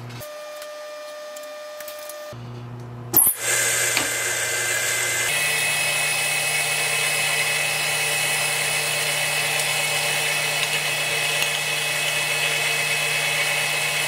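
Acra tool and cutter grinder grinding a small 4-40 socket head screw held in its spindle: a steady hissing grind with a high whine. Before it there is a quieter hum and a sharp click about three seconds in.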